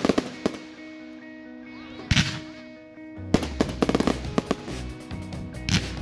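Aerial fireworks shells bursting, with a loud burst at the start and another about two seconds in. A rapid run of crackling pops follows from about three seconds in, and another burst comes near the end. Music plays underneath.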